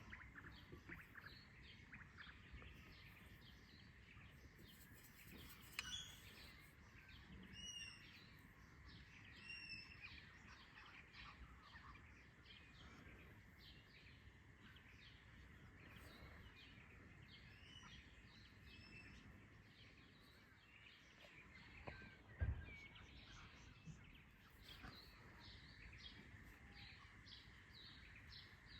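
Faint dawn chorus of wild birds: many short chirps and a few longer curving calls, the clearest between about 6 and 10 seconds in. A single low thump comes a little past the middle.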